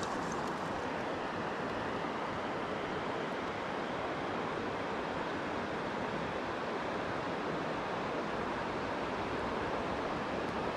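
Steady rush of flowing river water, an even noise that holds at one level throughout.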